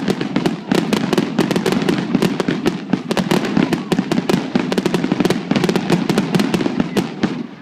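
Fireworks crackling: a dense run of sharp cracks and pops, many a second, over a low rumble, dying away near the end.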